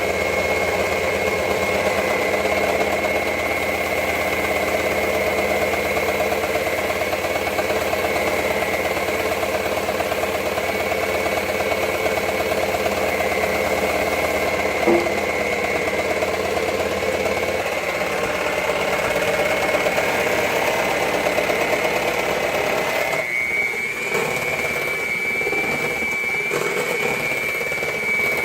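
Electric mixer running steadily on medium speed, its beaters working butter, sugar and peanut butter into cookie dough, with a steady high motor whine; the whine steps slightly higher about two-thirds of the way through.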